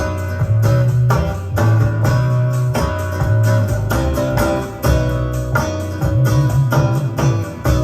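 Guitar-led music with a strong bass line played back from a Type II cassette on a restored Sony TC-K555ESL cassette deck. The owner hears this playback as better than Type I but with its dynamic range compressed.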